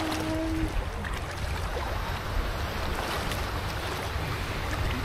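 Wind buffeting the microphone over shallow sea water, with small waves and water swishing around the legs of people wading as they push a wooden boat off.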